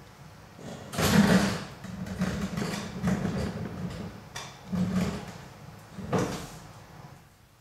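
A run of irregular scraping, sliding noises, the loudest about a second in, over a steady low hum.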